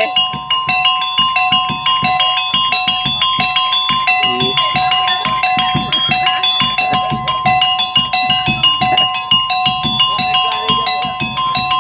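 Live topeng monyet (Javanese monkey-show) accompaniment: a small drum beaten in a quick, even rhythm under repeated ringing notes from small metal percussion.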